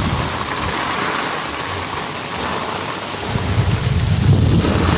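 Heavy rain pouring steadily in a windy storm, with a low rumble underneath that eases in the middle and swells again in the second half.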